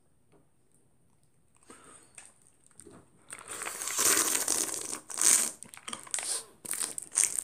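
Plastic snack-pouch wrapper crinkling as it is handled and crumpled: a few light rustles, then loud, uneven crackling from about three seconds in.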